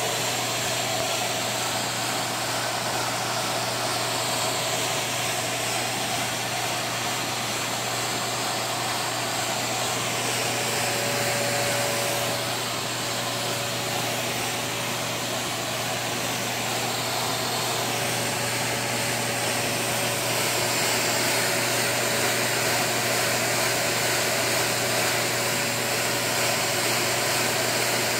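Homemade wooden air engine running on compressed air, its wooden gears turning, with a steady whirring hiss and a constant low hum underneath.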